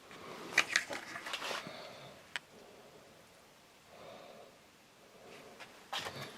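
Handling noise from the camera and plastic pieces being picked up and moved: rustles and scattered clicks, with one sharp click about two and a half seconds in and more rustling near the end.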